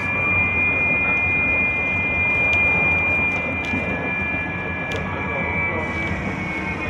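GT6N low-floor tram running along the street, heard from inside the car: a steady rumble of the ride with a high, steady whine held over it, and a few light clicks and rattles.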